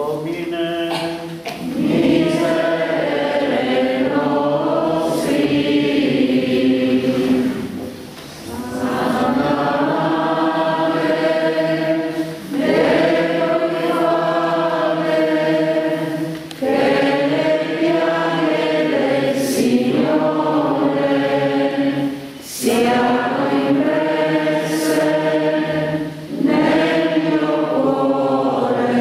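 A congregation singing a hymn together in slow sung phrases of a few seconds each, with short breath pauses between phrases.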